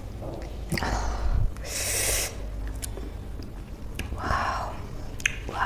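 Close-miked mouth sounds of eating sour citrus: wet smacks and clicks around a second in, then a sharp hissing breath drawn in through the teeth about two seconds in, and a breathy exhale about four seconds in.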